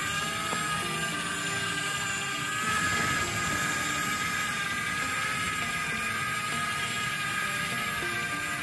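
Yigong toy RC excavator running: a steady electric whine over a low mechanical rumble, the whine rising at the very start and then holding even.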